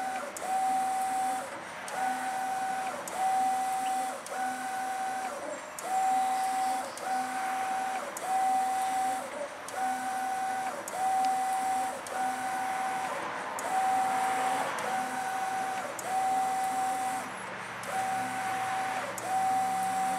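Mimaki GP-604 direct-to-garment inkjet printer printing onto a t-shirt. The print-head carriage sweeps back and forth with a whine on each pass, about one pass a second, and a slightly longer pause every four seconds or so.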